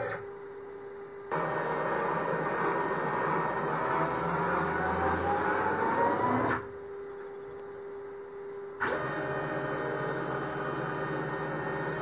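Makko 1070 CNC router's axis drive motors whining as the gantry and spindle head travel, with a slowly rising tone during each move. The motors fall quiet briefly at the start and again for about two seconds midway, between moves.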